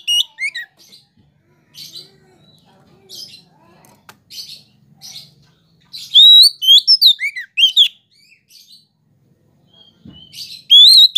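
Oriental magpie-robin (kacer) singing: loud whistled phrases of notes that slide up and down, with scattered softer chirps through a lull in the middle, a loud run of phrases about six seconds in, and another beginning near the end.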